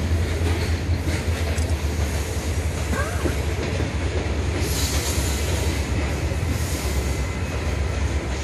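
Norfolk Southern freight train running past, a steady heavy rumble of railcars rolling on the rails.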